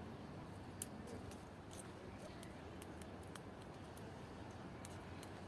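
Faint low background hum with scattered small clicks and ticks, one sharper click a little under a second in.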